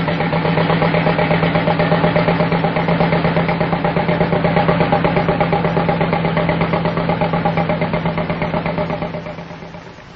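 An engine running steadily with a rapid, even throb, fading out over the last second or so.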